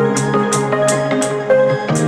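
Background music: an instrumental track with sustained notes over a steady, quick percussion beat.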